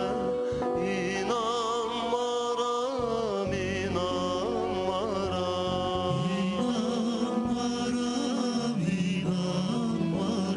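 Male vocal group singing an Azerbaijani song live, with a wavering, ornamented sung melody over instrumental accompaniment.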